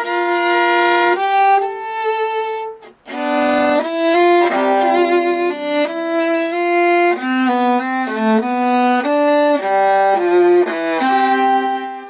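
Solo viola bowed: a few long held notes, a short pause about three seconds in, then a quicker melodic passage of changing notes.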